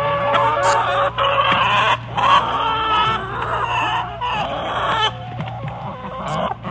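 Many chickens clucking and crowing at once, their calls overlapping, over a steady low hum.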